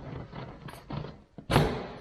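A few knocks and thuds of cabinet parts being handled and set in place, the loudest about a second and a half in.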